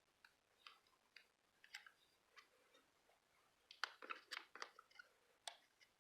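Faint handling noises of paper craft supplies: scattered small clicks and crinkles, with a busier cluster about four seconds in.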